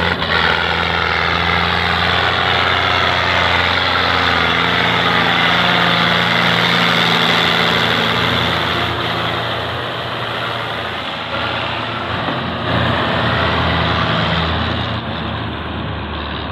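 Belarus tractor's diesel engine running hard under load as it hauls a heavily loaded sugarcane trolley uphill, passing close by. The engine sound is loud and steady, then eases off over the last few seconds as the tractor moves away.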